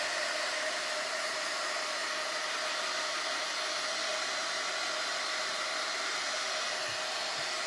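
Steady rushing air noise of a small blower running at an even speed, unchanging throughout.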